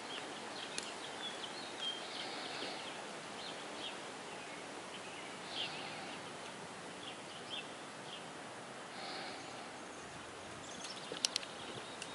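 Outdoor ambience: a steady background hiss with scattered short bird chirps, and a few sharp clicks near the end.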